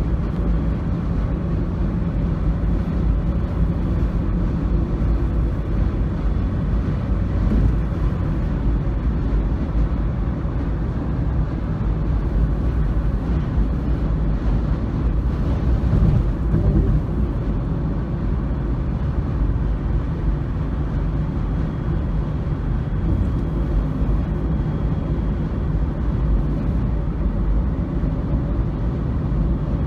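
Steady low rumble of vehicle and road noise, with faint steady low tones under it and a slight swell about sixteen seconds in.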